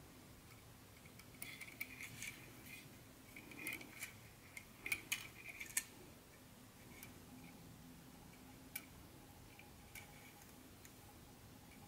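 Small plastic clicks and taps from an HO-scale model caboose being handled and turned in gloved hands. A cluster of them comes in the first half, then a couple of single clicks, all faint over a steady low hum.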